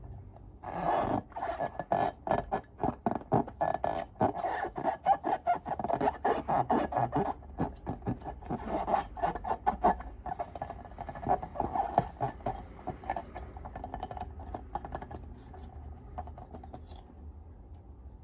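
Slime being squished and worked by hand, making a dense run of sticky, crackling clicks that starts about a second in and thins out near the end.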